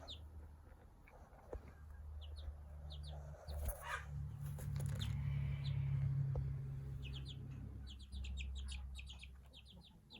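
Young Australorp–Light Brahma–Silkie bantam cross chick peeping in short, high chirps, scattered at first and coming in quick runs over the last few seconds, over a low steady hum. A brief rustle about four seconds in.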